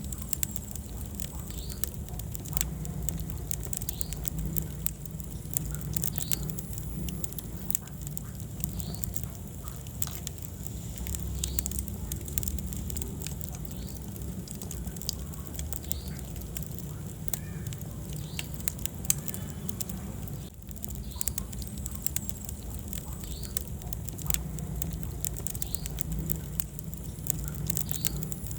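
Wood fire burning in a fireplace, crackling with frequent irregular sharp pops over a low, steady rumble of flames.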